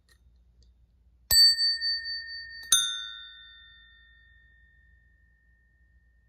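An unbranded bicycle bell struck twice by its striker, about a second and a half apart. Each ding rings out clearly and fades slowly over a few seconds.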